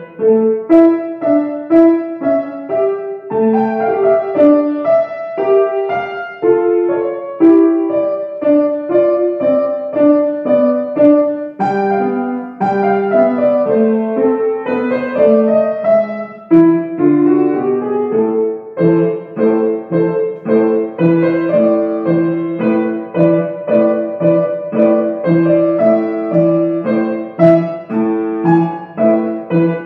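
Upright piano played solo: a flowing melody over a steady accompaniment of repeated lower notes, with brief breaks between phrases.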